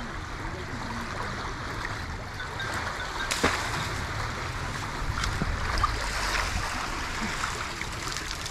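Steady rush of fast-flowing canal water, with a sharp knock about three seconds in and a few fainter ones later.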